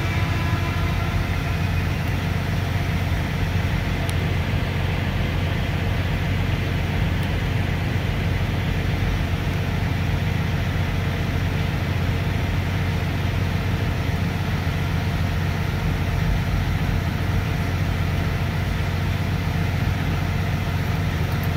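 Steady low engine hum, unchanging throughout, heard from inside a semi truck's cab.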